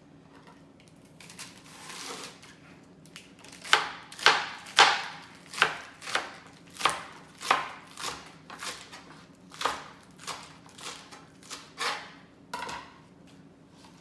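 Knife chopping romaine lettuce leaves: a run of about fifteen crisp cutting strokes at an uneven pace, starting a few seconds in.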